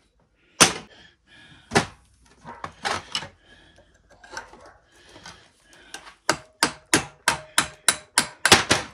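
Hammer blows on a Robertson screwdriver bit used as a punch on a small electric motor's housing, knocking it apart for scrap. Two single knocks early on, some light metal clatter, then about nine quick taps at roughly three a second, each with a faint metallic ring.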